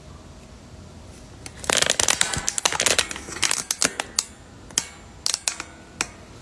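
Handling noise from the phone that is recording: fingers tapping and rubbing on the phone. A dense patch of clicks and scraping lasts about a second and a half, then single taps follow at irregular intervals.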